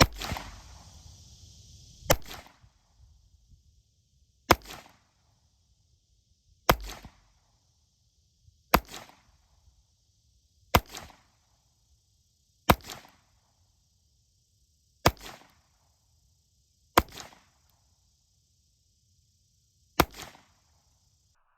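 Ruger LCP II .22 LR pocket pistol firing ten shots at a slow, even pace, about one every two seconds. Each sharp crack is trailed by a fainter echo.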